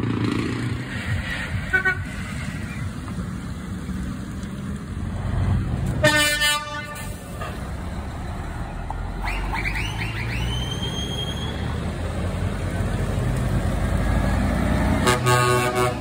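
Truck horns tooting as lorries pass with their diesel engines running: one short horn blast about six seconds in and another near the end. A few rising whistle-like glides sound around ten seconds in.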